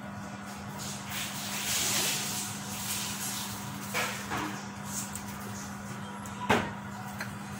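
Salt being poured from a plastic salt container into a pot of broth on an induction cooktop, over a steady low hum. There is a brief hiss around two seconds in and a few light knocks from the container, the loudest about six and a half seconds in.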